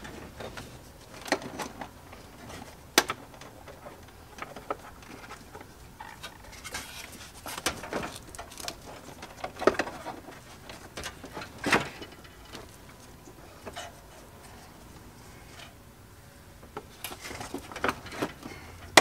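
Irregular light clicks, knocks and rustling of a person shifting about and handling parts under a partly dismantled truck dashboard, with a sharper knock about 3 seconds in and another near 12 seconds.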